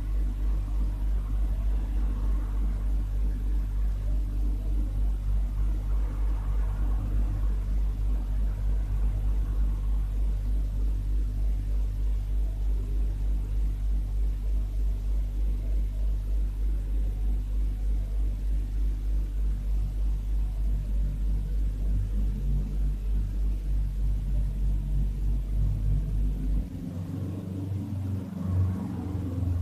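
A microwave oven running: a steady low hum with a regular pulse of about two to three beats a second, cutting off abruptly near the end, followed by a few uneven bumps.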